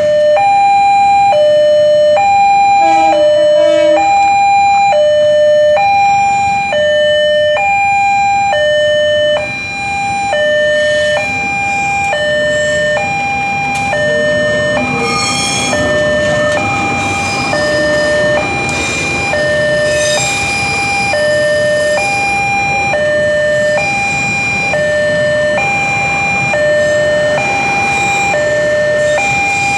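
Railroad level-crossing warning alarm sounding a steady, repeating two-tone high-low chime. Partway through, the rumble and wheel noise of a passing passenger train rises under it.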